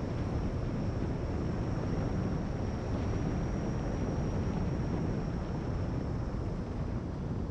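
Wind rushing over the onboard camera microphone of a radio-controlled FPV plane in low, fast flight, with a faint steady high whine held throughout.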